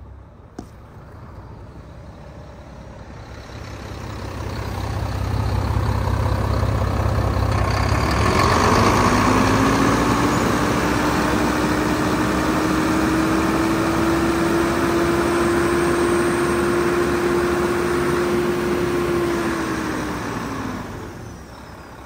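Volvo D11 10.8-litre inline-six diesel engine running, revved up from idle and held at high speed for about ten seconds with a steady whine, then dropping back to idle near the end.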